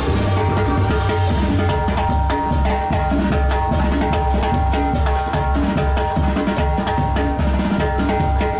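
Live band music with a steady, bass-heavy beat, with timbales struck rapidly with sticks over held musical tones.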